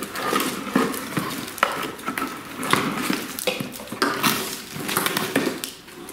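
Holley Terminator X wiring harnesses handled and lifted out of a cardboard box: plastic connectors clicking and knocking together and the wire loom rustling against the box, in a run of irregular clicks.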